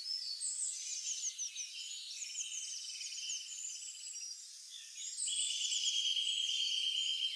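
Several songbirds chirping and singing over one another in quick, high call series, with a long, even trill through the last two seconds.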